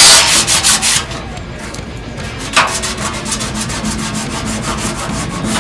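An angle grinder grinding welds on a steel plate stops about a second in. A gloved hand then rubs back and forth over the freshly ground steel in quick strokes, about five a second.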